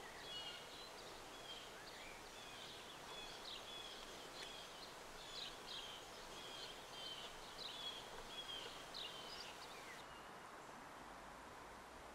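Faint songbird chirping, a run of short high notes, some sliding down in pitch, over a steady outdoor hiss. The chirping stops about two seconds before the end.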